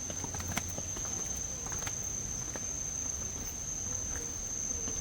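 An insect, cricket or cicada, singing one steady high-pitched tone, with scattered light clicks and taps over it.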